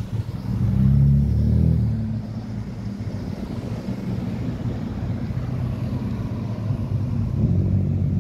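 Ford Falcon sedans driving past one after another with a deep engine note. The first passes loudest about a second in, and another comes by near the end.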